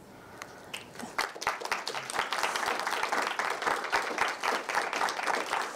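Audience applauding: scattered claps about a second in that build quickly into steady clapping from many hands.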